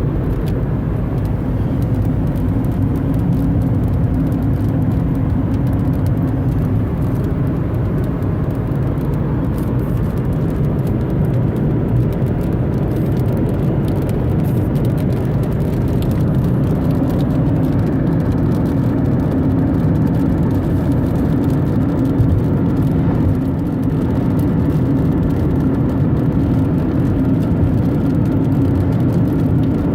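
Steady road noise from a moving car: tyres on pavement and the engine running at cruising speed, heard from inside the cabin, with a faint steady hum through it.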